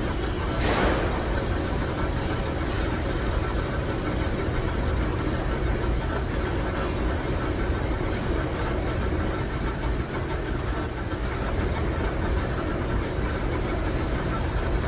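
Steady machinery running with a low rumble, and a brief hiss about a second in.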